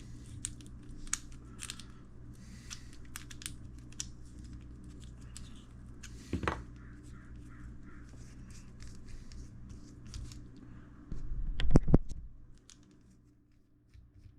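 Small RC crawler shock parts being handled and worked with a small hand tool: scattered light clicks and ticks, a sharper knock about six seconds in, and a louder cluster of bumps near the end.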